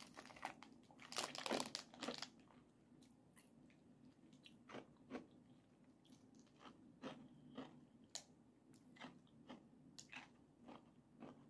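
Biting into a hard-shelled edible crystal candy, then chewing it: a cluster of crisp crunches in the first two seconds as the crunchy outer shell breaks, then sparse, faint crunches while chewing the jelly inside.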